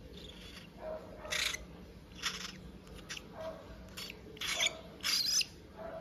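Cockatiel chick giving a string of short, harsh calls, about six in a few seconds, the last one longer.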